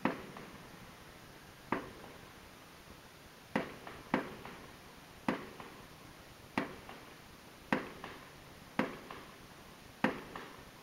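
Distant aerial fireworks bursting in the sky: about ten sharp bangs at uneven intervals of roughly a second, each trailing off in a short echo.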